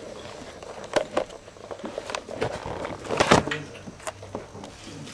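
A handful of short knocks and bumps over low room noise, the loudest a little past three seconds in.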